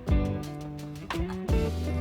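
Background music: held pitched notes over a bass line with sharp percussive hits, possibly a plucked guitar.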